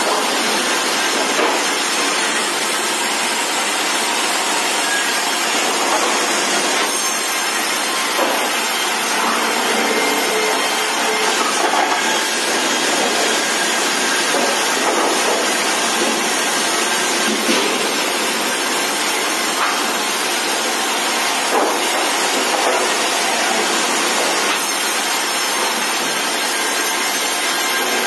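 Sawmill machine cutting timber beams fed through on a roller conveyor: a loud, steady rush of saw noise that runs without pause.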